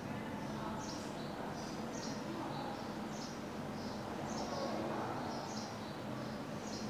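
A felt-tip marker squeaking on a whiteboard as words are written, in short high chirps about twice a second, over a faint steady room hum.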